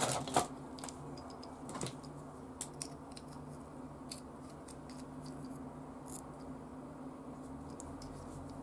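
A few light clicks of the small metal screwdriver handle being handled near the start, then a steady low hum with a few faint ticks.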